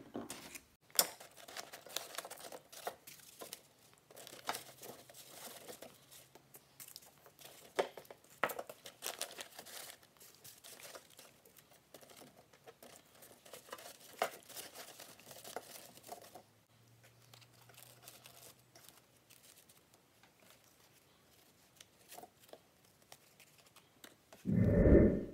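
Hands arranging decorations in a metal pail lined with newspaper: paper crinkling and rustling, with light knocks and clicks as decorative balls and burlap pumpkins are pushed in. The handling grows quieter in the later part, and a short loud sound comes near the end.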